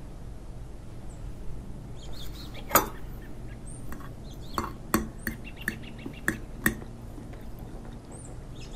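A metal fork clicking against a ceramic plate: a handful of sharp clicks, the loudest about three seconds in, over a steady low hum.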